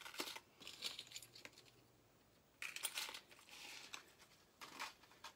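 Faint rustling and light clinking in three short spells: jewelry pieces being picked up and handled.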